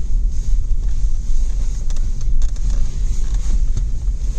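2004 Toyota Land Cruiser with a 4.0-litre engine driving off-road: a steady low rumble of engine and road noise, with a few faint knocks and rattles between about two and four seconds in.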